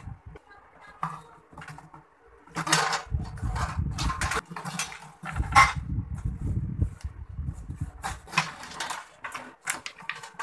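Corrugated plastic flexible conduit rattling and scraping as it is handled and fitted into the connectors of a metal circuit breaker enclosure. The rattling comes in irregular bursts with low knocks and bumps, busiest in the middle and again near the end.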